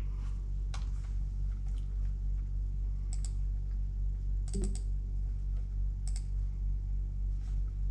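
A steady low hum with a dozen or so light, sharp clicks scattered at uneven intervals.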